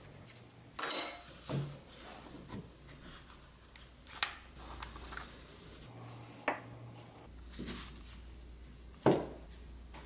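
Metal parts of a Milwaukee M12 impact driver clinking and knocking as the tool is taken apart by hand on a wooden bench: several separate clinks and taps, the loudest about a second in and near the end.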